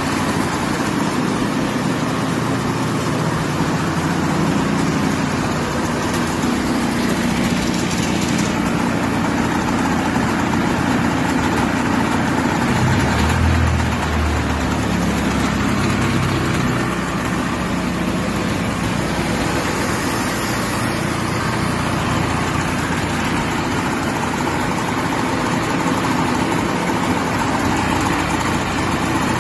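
Ski-Doo Formula 700 two-stroke twin-cylinder engine idling steadily with its engine bay uncovered.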